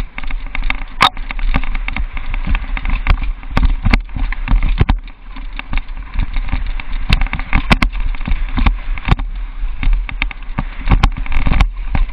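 Downhill mountain bike riding fast over a rough dirt trail, heard from a camera mounted on the bike: a continuous rattle and rumble with many sharp, irregular knocks as the bike hits bumps.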